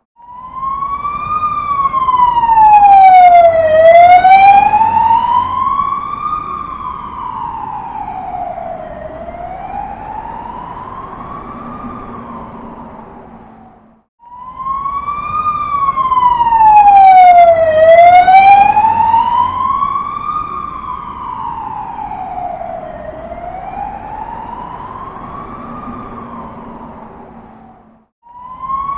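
Emergency vehicle siren passing on a street in a slow wail that rises and falls about every five seconds. Each pass swells to its loudest a few seconds in, then fades over low traffic noise. The same pass plays twice and cuts off suddenly each time.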